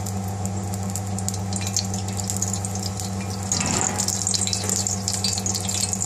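Thin layer of cooking oil heating in a frying pan, crackling lightly, the crackle growing busier about three and a half seconds in. Under it runs a steady low hum.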